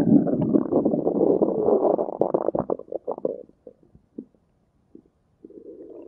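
Stomach growling: a loud, long gurgling rumble that breaks up into short separate gurgles about two and a half seconds in, dies away, then a fainter rumble starts again near the end.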